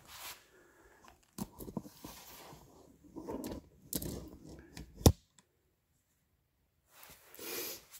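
Handling noise from a camera being lowered and repositioned: irregular rustling and scraping with several clicks, then a sharp knock about five seconds in, the loudest sound. A brief scrape follows near the end.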